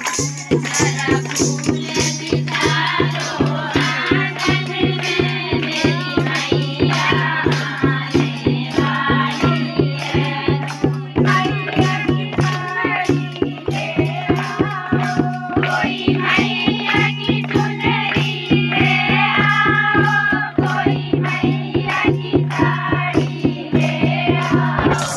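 Group of women singing a devotional Hindi/Garhwali kirtan bhajan together, kept to a fast steady beat of hand claps and percussion, with a steady low drone underneath.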